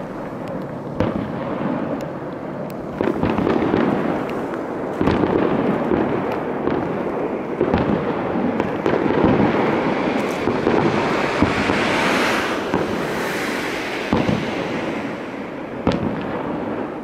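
Aerial fireworks heard from a distance: a rapid, near-continuous run of bangs over a rumbling wash, with a brighter crackling stretch about twelve seconds in.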